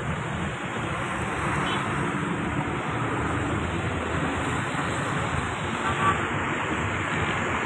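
Steady vehicle running noise: a low rumble under a rushing hiss, with a brief sharp sound about six seconds in.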